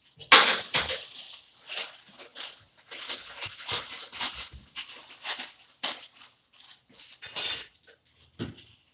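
Kitchen items being handled at the counter: a run of short clinks, clatters and rustles. The loudest come about a third of a second in and again about seven and a half seconds in.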